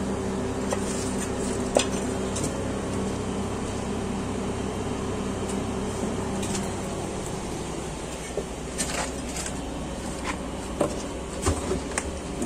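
Fired clay bricks being lifted and moved by hand, knocking and clinking against each other now and then, over a steady low mechanical hum that fades about seven seconds in.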